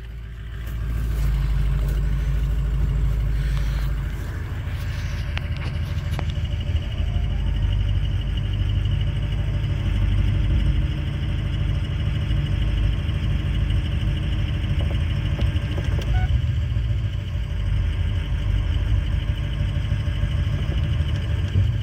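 Pickup truck's engine running as the truck drives slowly under the load of a car in tow, heard from inside the cab as a steady low rumble.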